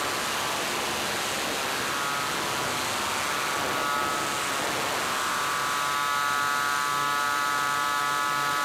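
Live electronic sound score: a steady wash of hiss-like noise, with a drone of several steady high tones fading in about two seconds in and growing stronger from about five seconds on.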